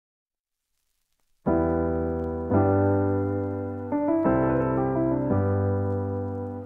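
Background music: after about a second and a half of silence, sustained electric piano chords begin and change a few times.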